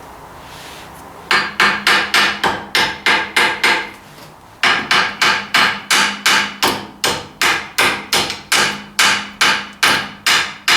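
Hammer blows on a chisel against a worn steel tractor part, about three sharp ringing strikes a second, in a short run and then a longer one after a brief pause about four seconds in. The chisel is being driven to split and break out a worn, razor-thin bushing.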